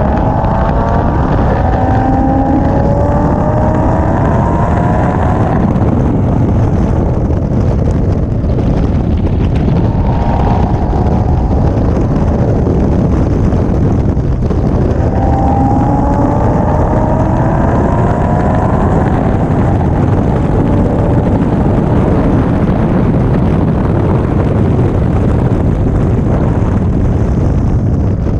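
Car engine at track speed under heavy wind rush on the microphone, the engine pitch rising as it accelerates in the first few seconds and again around halfway through.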